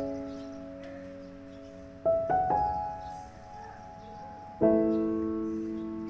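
Slow piano music. A few notes start about two seconds in and a full chord sounds near the end, each left to ring and fade.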